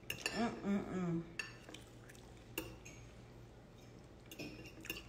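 A few sharp clinks of cutlery against dishes, spaced out over several seconds, with a short voiced murmur near the start.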